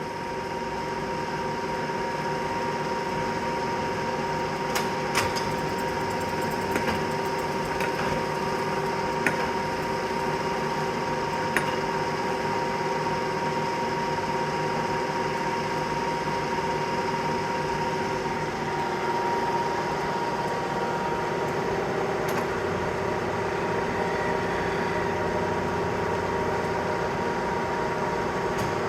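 Kearney & Trecker Milwaukee milling machine running with a steady whine and a few faint clicks.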